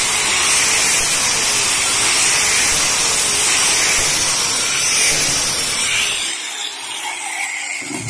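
Electric angle grinder with a sanding pad and an old sandpaper disc, running steadily as it sands old paint off painted wood. About six seconds in it is switched off and its motor winds down.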